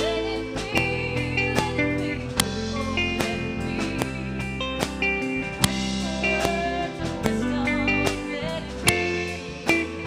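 Guitar synthesizer music from a Boss SY-1000 played through a GK divided pickup. A high lead melody with vibrato runs over held lower tones, punctuated by frequent sharp plucked or percussive attacks.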